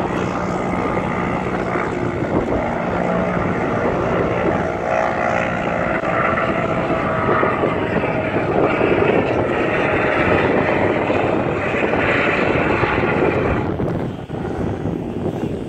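A 4x4's engine revving hard as it drives and slides through loose dune sand, the revs rising and falling. It eases off near the end.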